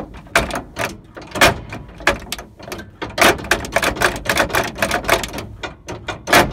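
Rapid, irregular metallic clanking and rattling, about four or five knocks a second of varying strength, from the auxiliary transmission shift rods and linkage under a Peterbilt 359 as they are worked.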